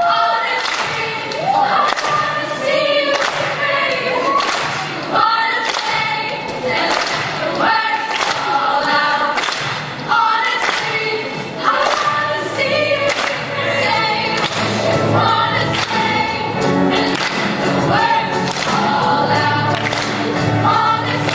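Youth show choir singing in harmony with a small live band, over a steady beat.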